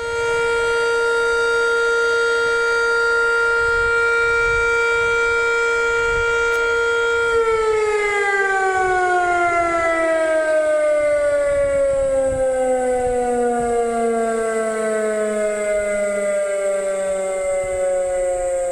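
Electric motor siren sounding as a time signal: one steady high wail held for about seven seconds, then the pitch slowly sinks as the siren winds down.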